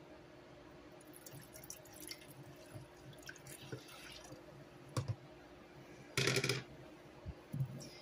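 Hot water poured from a plastic container into a slow cooker's ceramic crock onto powdered brown gravy mix, a soft trickling splash. A click about five seconds in and a short, louder clatter just after six seconds.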